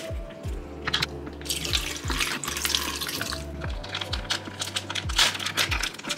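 A plastic bag of mozzarella being cut open with scissors and pulled apart: the bag crinkles and the brine inside sloshes and splashes, in a few bursts.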